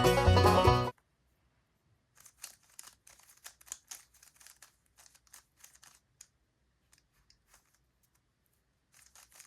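Background music cuts off suddenly about a second in. Then a Rubik's cube is turned quickly, its plastic layers clicking and clacking in short irregular runs.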